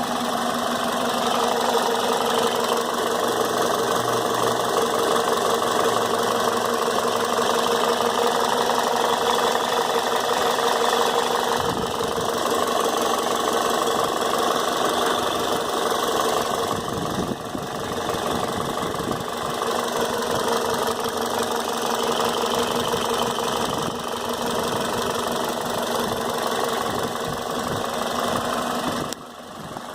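2003 Toyota Corolla S's 1.8-litre four-cylinder engine running steadily at idle with an even, constant note. The owner is unsure whether this noise is normal; it appeared after a new intake manifold gasket, spark plugs and serpentine belt were fitted.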